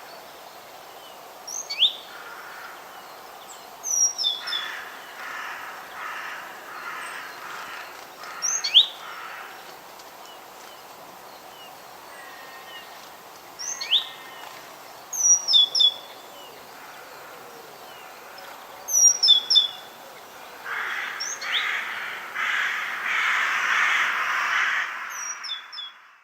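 Crows cawing in runs of harsh, evenly spaced calls, the longest and loudest run near the end. Small birds give short, sharp chirps throughout, over a quiet forest background.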